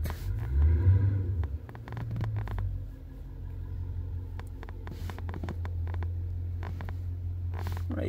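A steady low rumble in the background, a little louder for the first few seconds, with a few faint light taps of a stylus on a scan-tool touchscreen.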